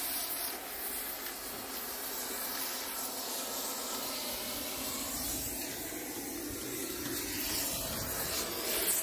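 Oxy-propane cutting torch hissing steadily as it melts the heads off steel rivets.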